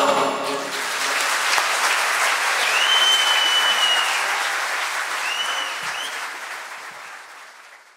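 Audience applauding after a choir and instrumental ensemble cut off their last note. Two high steady tones, like whistles, rise over the clapping, and the applause fades out near the end.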